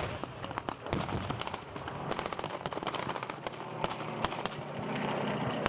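A rapid, irregular crackle of many sharp bangs, several a second, from blank small-arms fire and pyrotechnic charges going off, over a low steady drone.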